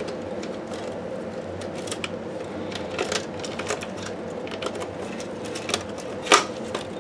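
Light clicks and rattles of plastic parts and wiring being handled inside an opened projector chassis, with one sharper click about six seconds in, over a faint steady hum.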